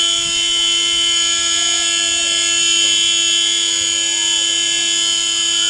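Basketball game buzzer from the hall's scoreboard sounding one long, steady electronic tone that cuts off suddenly.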